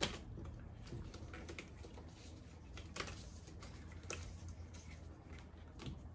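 Scattered light clicks and knocks of a wooden bow, clamps and a rubber strap being handled on a wooden workbench, with a sharper knock about three seconds in. A steady low hum lies underneath.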